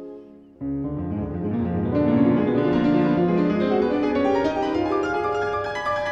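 Piano and wind sextet (flute, oboe, clarinet and two bassoons) playing classical chamber music. A held chord fades away, then about half a second in the whole ensemble comes in loudly, with the piano prominent in quick, dense figures.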